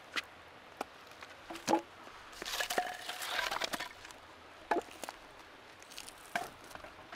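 Dog biting and chewing a wooden stick: scattered sharp cracks, with a denser spell of crunching and splintering about two and a half seconds in.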